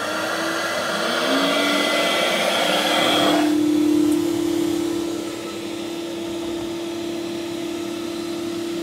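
The two in-series vacuum motors of an Ashbys 250 psi Enforcer carpet cleaning machine, switched on one after the other: the first already running with a steady whine, the second spinning up with a rising whine about a second in, over a rushing exhaust. The rushing grows quieter about halfway through and both motors run on steadily.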